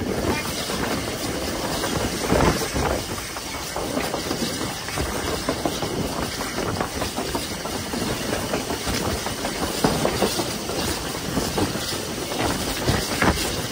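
LSWR T3 class 4-4-0 steam locomotive No. 563 running under way, heard close up from the cab side: a steady rush of steam and running noise.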